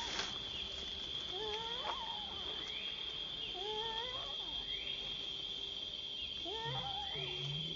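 Baby macaque crying: three wavering, whistling calls that rise and fall in pitch, one about every two to three seconds. A steady high-pitched hum runs underneath.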